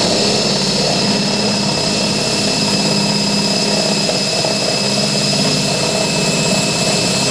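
Power drill running steadily with a high whine, its oiled bit boring a hole through the metal floor of a pickup truck bed.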